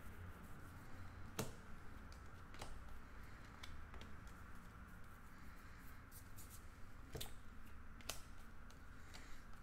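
Bowman baseball trading cards being flipped through by hand, one card slid off the stack after another: faint, irregular ticks of card against card over a low steady hum.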